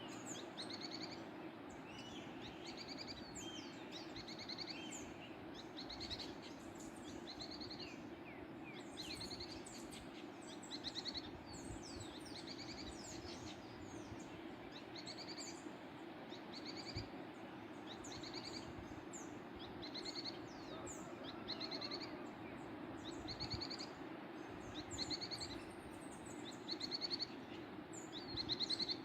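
Small songbirds singing and calling throughout, with short, quickly repeated high trills and quick down-slurred chirps, over the steady rush of a waterfall.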